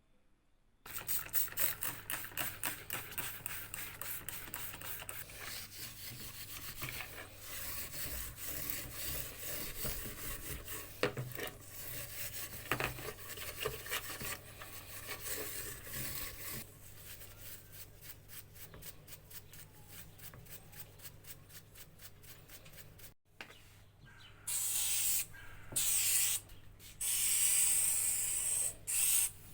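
Fast back-and-forth abrasive rubbing strokes on metal, as in cleaning rust from old drill parts by hand. Near the end come three louder bursts of hissing spray.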